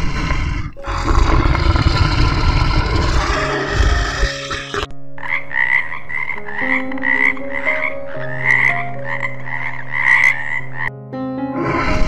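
A frog croaking in a steady series of short calls, about two a second, after a few seconds of a rough, noisy sound.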